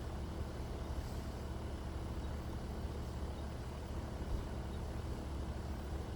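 A steady low rumble with a faint hiss above it, even throughout, with no distinct events.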